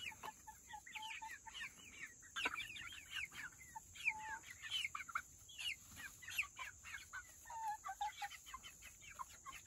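A flock of young chickens chirping and clucking: many short, high, falling chirps overlap throughout, with a few held, lower notes between them.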